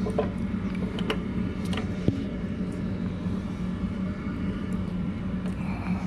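A steady low machine hum with a few light mechanical clicks from the band saw's blade-tracking adjustment, and one sharper tap about two seconds in.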